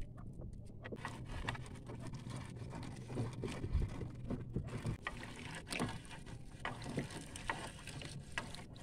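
Water splashing and dripping around a small outrigger fishing boat as the wet triple net is worked in, with irregular small splashes, drips and taps over a low steady hum.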